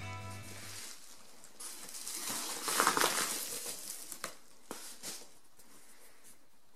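Paper padded mailer crinkling and rustling as a cardboard box is slid out of it, loudest about three seconds in, followed by a few light taps of the box being handled.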